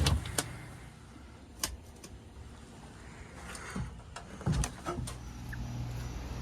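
A few scattered clicks and knocks, then about five seconds in a steady low hum starts up: the 2021 Carrier split-system air conditioner starting to run.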